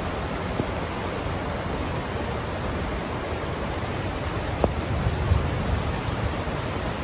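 Steady rushing noise of fast-flowing floodwater, with a few low rumbles in the second half.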